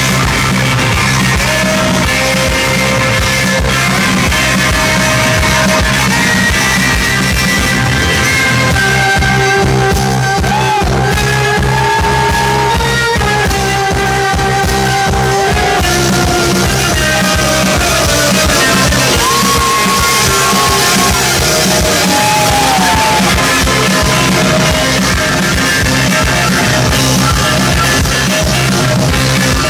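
Live rock band playing loud, with electric bass, saxophone and drums, and a wavering melody line riding over them.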